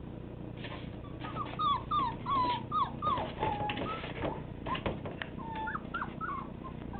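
Siberian husky puppies whimpering and whining: a quick run of short, high, falling cries starting about a second in, one longer held whine in the middle, and a few more cries near the end. Claws scratch and tap on the cardboard box wall among the cries.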